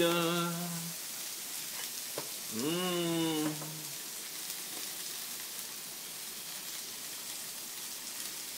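Prawns sizzling steadily in a hot frying pan on a gas stove. A man's voice holds a long note at the start and another about three seconds in.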